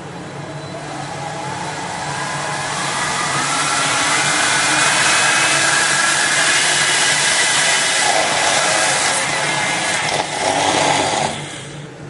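Hair dryer fan motor being cranked up on a variac to blow it: its whine rises in pitch over the first few seconds as it speeds up, then it runs loud with a rush of air. The sound drops away near the end as the motor gives out.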